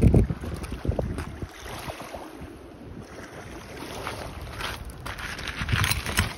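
Wind gusting on the microphone, loudest in the first second. Near the end, beach pebbles clatter and scrape as a slotted metal spoon digs through them.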